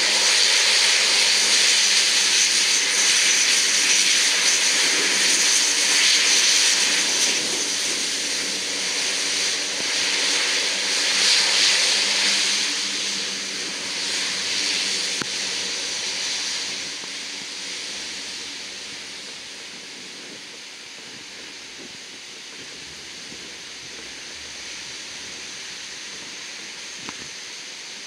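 Lockheed Martin HC-130J's four Rolls-Royce AE 2100D3 turboprops running at taxi power, a high turbine whine over a steady propeller drone. It is loud at first, then fades over several seconds as the aircraft moves away, and settles to a steady, quieter level.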